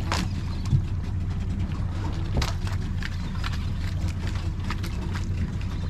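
Boat engine idling steadily, with a few short sharp clicks and knocks over it.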